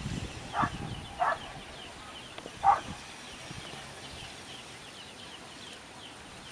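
Three short animal calls, about half a second in, just past a second, and near three seconds in, over a background of faint high chirping.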